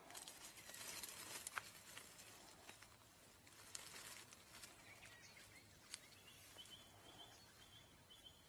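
Faint outdoor ambience over dry leaf litter: scattered light crackles and rustles, the sharpest about a second and a half in. A faint high, rapidly repeated chirping joins in the last two seconds.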